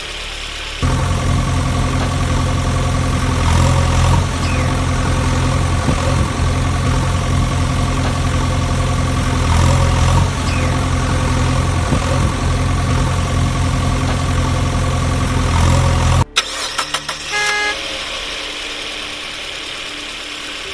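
Vehicle engine sound running steadily and loud, cutting off suddenly about sixteen seconds in. A second of clicks and short horn-like tones follows, then a quieter steady engine sound.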